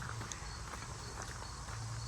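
Footsteps walking on a hiking trail, with scattered light clicks and scuffs over a low rumble of handling or wind noise.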